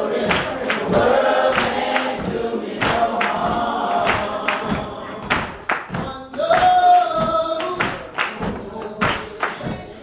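A woman singing a gospel song, joined by congregation voices, with hand claps keeping a steady beat about one and a half times a second.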